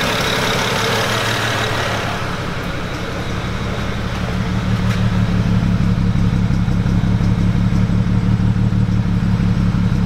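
BMW 335i's N54 twin-turbo straight-six idling with a slight stumble from a misfire, which the OBD reader puts on cylinder 2. For the first couple of seconds the engine itself is heard from the bay. After that comes the steady, low, pulsing exhaust note at the tailpipe.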